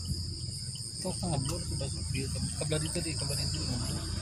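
Insects chirring steadily at a high pitch, over a low steady hum.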